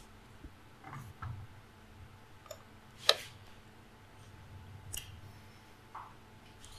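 Hands handling a plastic computer monitor panel and its stand, making faint rustles and light taps. One sharper click comes about three seconds in.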